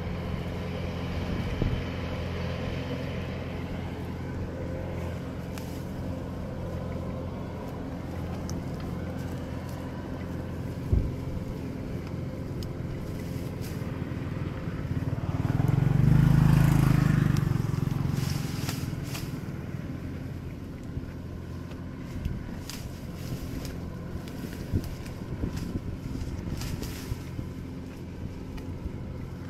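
Motor engine running steadily, with a louder pass that swells about halfway through and then fades, as of a vehicle going by close. Faint scattered crackles over it.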